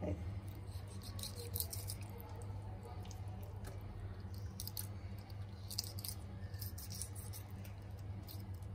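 A kitchen knife cutting and scraping through the soft, jelly-like flesh of a hand-held Bombay duck (bombil) fish, giving faint wet squishing and small scattered clicks over a steady low hum.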